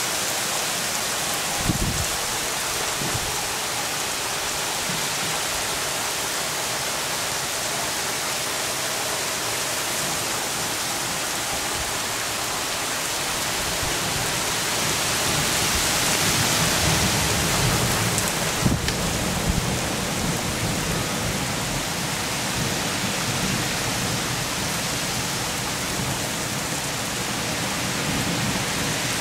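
Heavy thunderstorm rain pouring down steadily, an even hiss that swells a little past the middle. A few short low thumps stand out, near the start and again around two-thirds of the way in.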